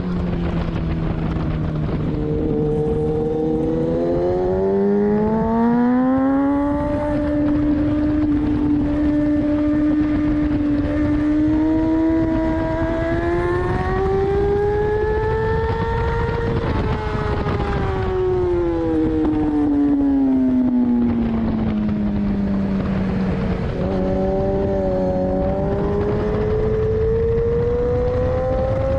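2014 Kawasaki ZX-10R's inline-four engine heard onboard at speed over steady wind rush. The engine note climbs as the bike accelerates, peaks about halfway through, falls away as it slows, and climbs again near the end.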